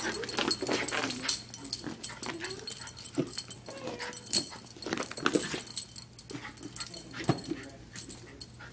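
A dog makes short, wavering cries while playing with a ball, among scattered knocks and rustles.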